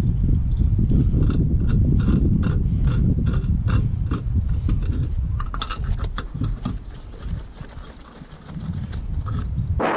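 Steel caravan wheel being worked onto its hub by hand, the rim knocking lightly about three times a second for a few seconds, over a steady low rumble that eases off near the end.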